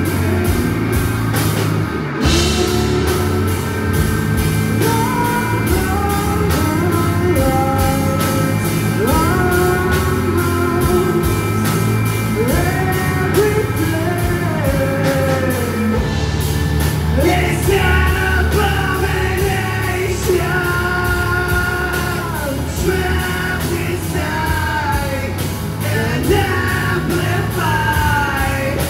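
Live rock band playing: electric guitar, bass guitar and drum kit under a singer's vocals, with brief breaks in the band about two seconds in and again about sixteen seconds in.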